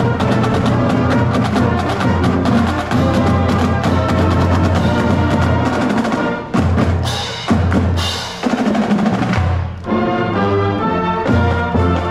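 High school marching band playing as it passes, with the drumline's snare and bass drums driving a steady beat under low brass notes. Two cymbal crashes come past the middle.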